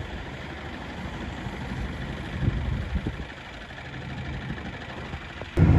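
GAZelle Next box truck's engine idling steadily, left running in hard frost. Near the end, a sudden louder and deeper rumble takes over: the truck under way, heard from inside the cab.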